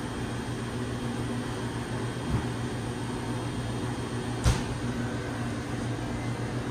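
Steady low hum of kitchen machinery, with two short knocks, the second and louder about four and a half seconds in.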